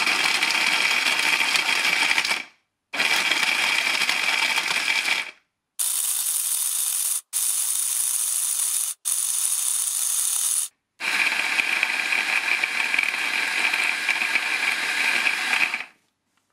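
600-watt Silvercrest SSMS 600 hand blender with its chopper attachment running on turbo, its blade chopping hard chunks of parmesan in the plastic bowl. The noise breaks off abruptly several times. In the middle it sounds thinner and higher.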